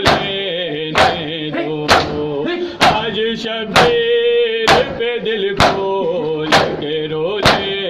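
Men chanting an Urdu nauha, a Shia mourning lament, in time with matam: an open hand slapping the chest about once a second, each slap a sharp crack that keeps the beat of the chant.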